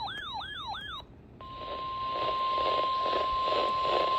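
About a second of rapidly repeating rising electronic sweeps, about four a second, that cut off. After a brief gap, the NOAA Weather Radio warning alarm starts: a steady single tone of about 1050 Hz over radio static with a pulsing hiss, signalling a severe weather warning.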